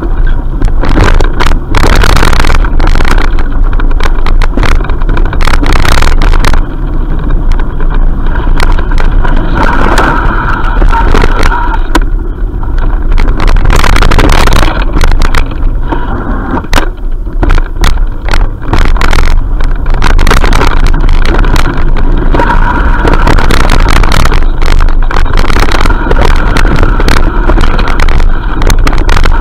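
Loud wind rumble on the microphone of a handlebar-mounted action camera, with frequent knocks and rattles as the bike jolts over a rough dirt trail.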